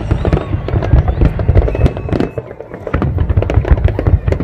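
Large fireworks display: a dense run of bangs and crackling bursts over a deep rumble, easing briefly a little past halfway before picking up again.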